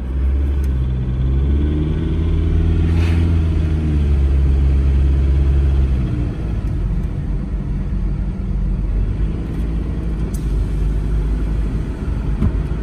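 Volkswagen 1.9 TDI ALH four-cylinder turbodiesel heard from inside the cabin, pulling hard under acceleration on freshly fitted injector nozzles. About six seconds in it eases off to a lower drone mixed with road noise.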